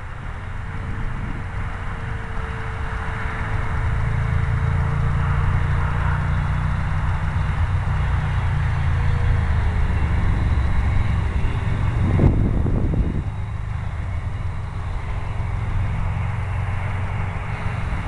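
Wind buffeting the microphone with a low rumble, over the thin, steady whine of a foamboard RC plane's brushless electric motor and propeller high overhead; the whine drops a little in pitch about halfway through. A brief rough gust hits the microphone about two-thirds of the way in.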